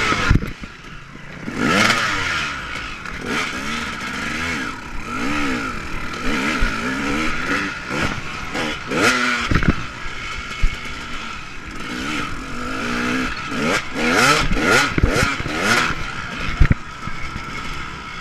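KTM 250 dirt bike engine revving hard and dropping back over and over as the bike is ridden at race pace around a motocross track. Sharp clattering knocks from the bike come in now and then, a few together near the end.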